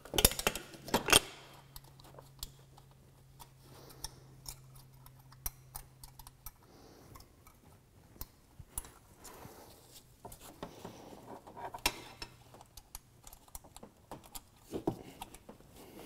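Scattered metallic clicks and taps of hand tools on the valve rocker arms of a Honda 3.5-litre V6 as a rocker arm's lock nut is tightened down with its adjusting screw held in place, the sharpest clicks about a second in. A faint low hum runs under the first half and stops.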